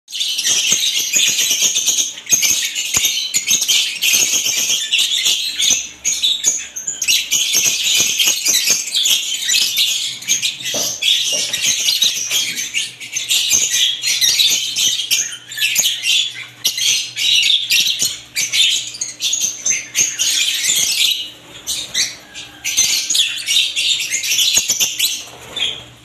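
Many lovebirds chirping at once: a dense, continuous stream of high, rapid, overlapping calls.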